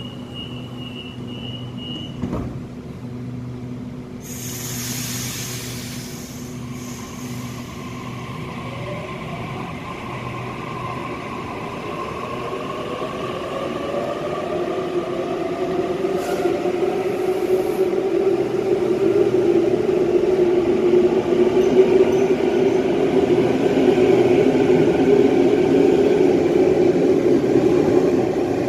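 A Sydney Trains Waratah (A-set) electric train departs an underground platform. A brief high beeping and a hiss of air come first, then the traction motors whine, rising in pitch and growing steadily louder as the train accelerates.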